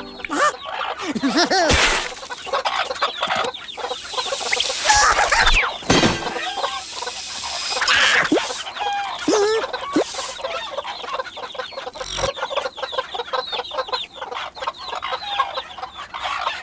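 Cartoon hens clucking and squawking, with several sudden whooshes and thuds from cartoon sound effects.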